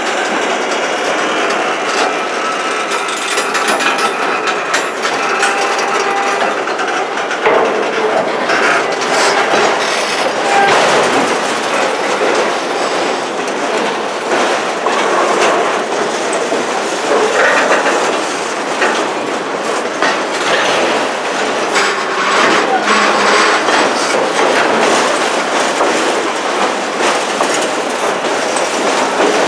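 CN freight train's railcars rolling past, a steady rumble with wheels clattering over rail joints.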